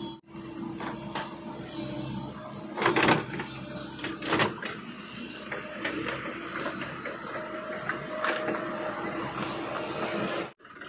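JCB 140 crawler excavator running and travelling on its steel tracks, a steady engine and hydraulic hum with two loud clunks about three and four and a half seconds in.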